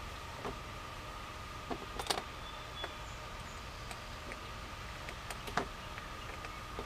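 Scattered light clicks and knocks of hand tools and parts being worked in a truck's engine bay, the loudest about two seconds in and another a little past five seconds, over a faint steady high whine.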